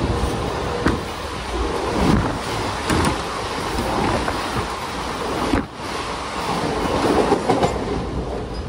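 Mumbai suburban electric local train running on the track: a steady rumble and rush of noise with a few short knocks from the wheels and carriages.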